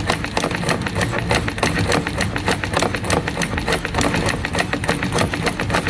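Royal household sewing machine running steadily as it stitches a test seam, a rapid, even clatter of needle strokes. The stitch length has just been set short, and the seam is being sewn to check the bobbin-case tension.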